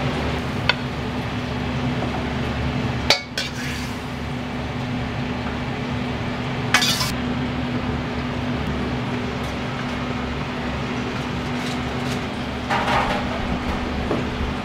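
Dishes and utensils clinking a few times, the sharpest knock about three seconds in and a short clatter near the end, over a steady background hum.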